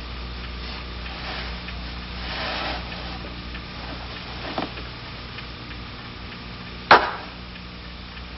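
Bedclothes rustling as a man stirs and sits up in bed, then a single sharp smack about seven seconds in.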